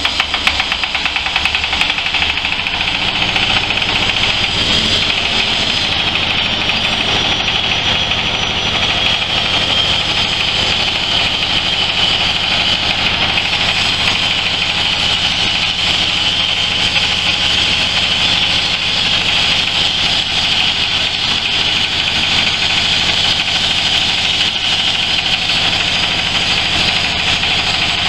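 Single-cylinder diesel engine driving a stainless-steel hammer mill. The engine runs unevenly for the first couple of seconds, then engine and mill run steadily with a loud high whirring hiss.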